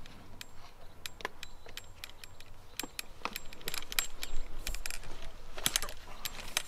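Small metallic clicks and rattles as a hand tool works the screw holding the plastic trimmer-line guard on an Echo SRM-3610 brush cutter, undoing it. The clicks come irregularly and grow busier about halfway through.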